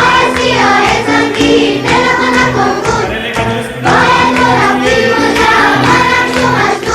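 A song with singing voices over instrumental backing; a new sung phrase begins about four seconds in.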